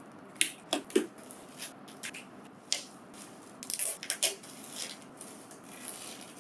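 Printer shelf parts and their packaging being handled while unpacked: irregular light clicks and knocks, thickest a little past the middle.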